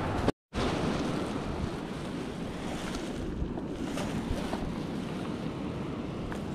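Wind buffeting the microphone over the wash of surf along the shore, a steady rushing noise that cuts out completely for a moment near the start.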